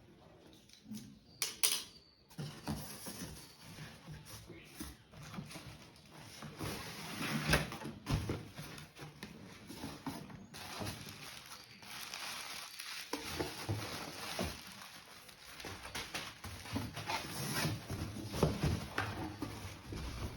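A parcel being handled and unboxed: irregular rustling of packaging with scattered knocks and clicks.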